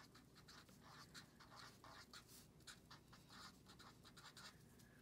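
Felt-tip marker writing on paper: a faint, quick, uneven run of short pen strokes as a word is handwritten.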